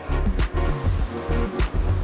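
Background music with a drum beat and a deep bass line.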